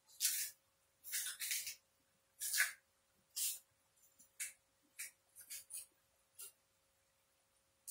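Green bananas being peeled, the tough skin scraped and stripped off in about a dozen short, crisp scraping strokes, uneven in spacing and some in quick pairs.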